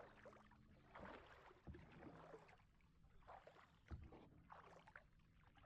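Faint kayak paddle strokes swishing and dipping in the water, about one a second.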